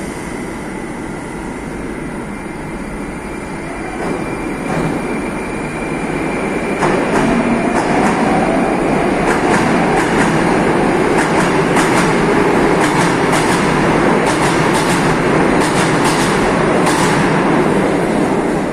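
Moscow Metro train pulling out of the station, growing louder as it gathers speed. From about seven seconds in, a motor whine rises in pitch, and the wheels click over the rail joints more and more often as the cars run past.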